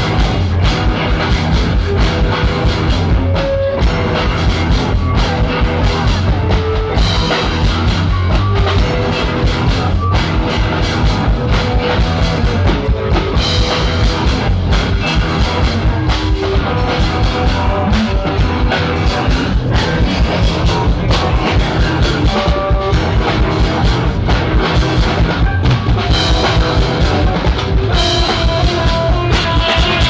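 Live rock band playing loud through a large PA: a steady drum-kit beat under electric guitar and keyboard.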